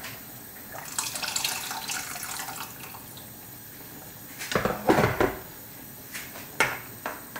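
Water being poured into a pot of sambar, a splashing hiss lasting about two seconds. A few seconds in, a steel ladle stirs and knocks against the aluminium pot, the loudest moment, followed by a couple of small clinks.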